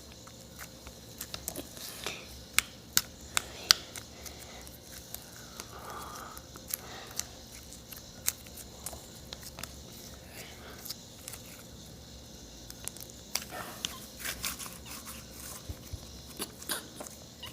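Homemade slime being squeezed and stretched by hand, giving scattered soft clicks and small sticky pops, in clusters near the start and again toward the end.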